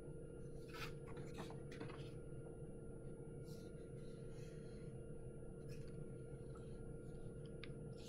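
Quiet room tone with a steady low electrical hum, broken several times by faint, short scratching sounds.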